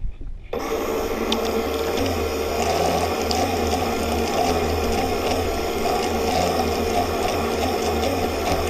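RC racing boat's motor and drive running, picked up by a camera mounted on the hull: a steady mechanical whirr that starts suddenly about half a second in and holds even.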